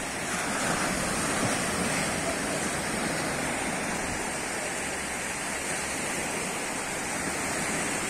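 Sea surf washing in, a steady rushing noise, a little stronger in the first two seconds.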